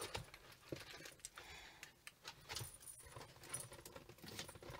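Faint jingling of small metal items, with scattered light clicks and rustles.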